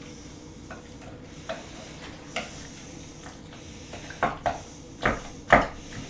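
Wooden spoon stirring and folding chicken salad in a bowl. There are a few light knocks against the bowl, then a run of louder knocks and scrapes in the second half.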